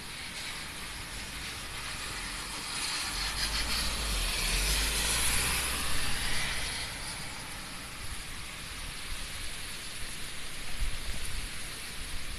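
Typhoon rain and wind, with a louder rushing swell of hiss and low rumble from about three to seven seconds in.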